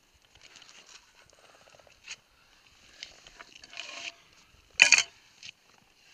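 Boots, gloves and an ice axe scraping and knocking on rock during a downclimb. The scrapes are scattered, with a loud sharp knock and scrape about five seconds in.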